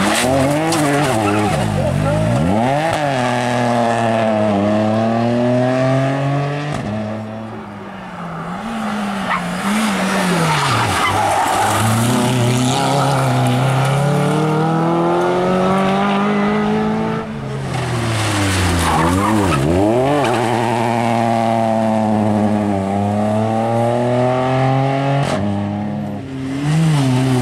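Rally cars' engines revving hard through a tight bend, one car after another: the pitch sweeps down on braking and downshifts, then climbs again as each car accelerates out, with some tyre squeal.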